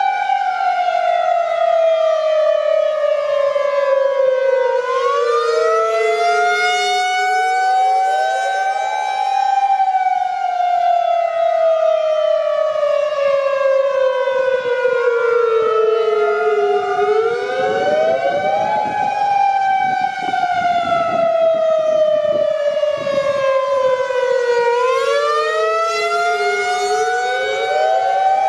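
Federal Signal Modulator 5020 and 2001-SRN outdoor warning sirens sounding the wail signal together during a siren test. The sirens are out of step: each pitch climbs quickly, then sinks slowly over roughly ten seconds, so the rising and falling tones keep overlapping.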